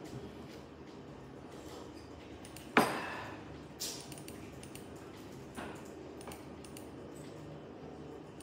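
Quiet room tone with one sharp knock about three seconds in, then a few fainter clicks and taps.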